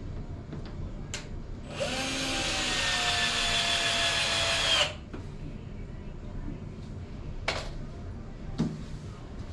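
Power drill running for about three seconds, a steady whir that starts and stops abruptly. Short knocks come before and after it.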